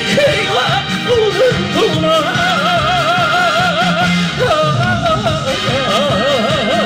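Trot song accompaniment track between sung lines: a lead melody held in long notes with wide, even vibrato, over a bass line and steady beat. The melody breaks off briefly about four and a half seconds in, then returns.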